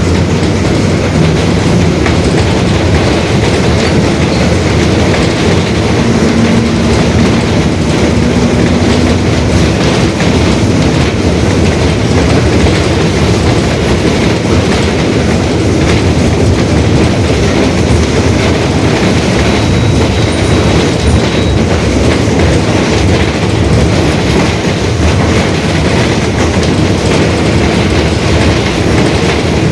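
Mercedes-Benz OF-1721 Bluetec 5 city bus under way, its diesel engine and drivetrain running steadily with rattling from the Marcopolo Torino S body, and its differential growling, the sign of a worn differential.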